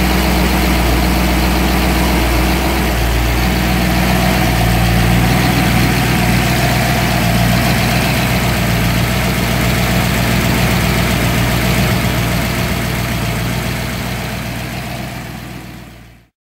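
Ford 289 cubic-inch V8 with a solid-lifter camshaft and a Summit Racing M08600VS four-barrel carburetor, running steadily at idle. It fades out near the end.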